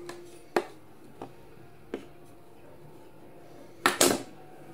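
A few sharp plastic clicks and taps from handling an earbud charging case, with a louder double knock near the end as the case is snapped shut and set down on the table.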